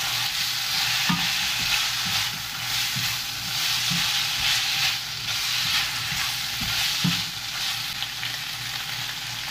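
Eggplant and minced tofu sizzling in an oiled frying pan while a spatula stirs and tosses them, with soft irregular knocks of the spatula against the pan. Near the end the stirring stops and only the steady sizzle goes on.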